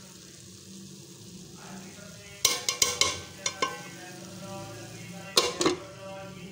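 A metal spoon scraping and knocking against an aluminium cooking pot several times, starting about two and a half seconds in, then a louder short clatter near the end as the pot's aluminium lid is set on.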